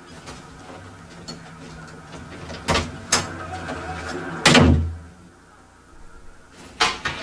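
A door being opened and shut: two sharp clacks, then a heavy door closing with a loud thud about four and a half seconds in.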